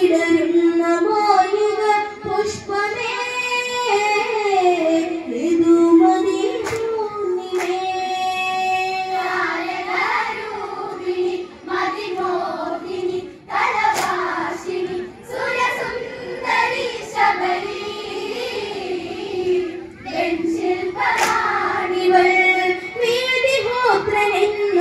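Girls and women singing a Malayalam Onam kali folk song together into microphones over a PA, in long held melodic phrases.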